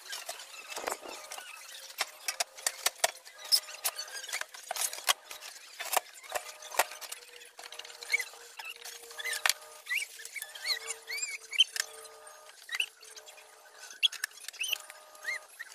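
Light clicks and knocks of aluminum window-frame sections and a glass pane being handled and pressed into place, with many short high squeaks throughout.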